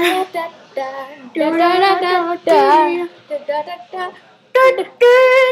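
A girl singing in short phrases with brief gaps between them, some held notes wavering in pitch; the loudest phrase comes near the end.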